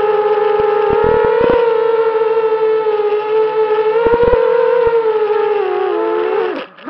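FPV racing quadcopter's motors and propellers whining steadily, the pitch lifting briefly with throttle twice, then falling away and cutting out about six and a half seconds in as the motors spool down for landing.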